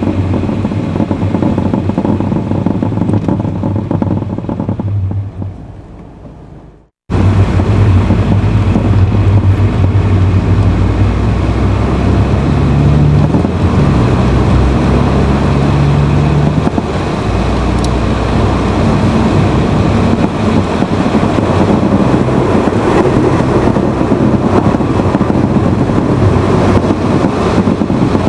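Honda Fit (GE8) being driven, heard from inside the car: steady engine and road noise with a low hum. This is the car whose intermittent abnormal noise the owner was trying to record. The sound fades away about six seconds in, breaks off for a moment, then comes back abruptly at full level.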